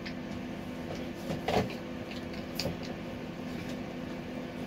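Scattered light clicks and knocks of hands handling food and dishes at a table, the loudest about a second and a half in, over a steady low electrical hum.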